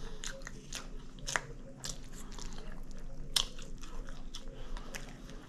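A person chewing and biting food close to the microphone: irregular mouth clicks and crunches, with louder bites about one and a half seconds in and a little past the middle.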